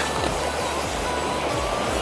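Background music over the steady rush of a shallow, fast-flowing river.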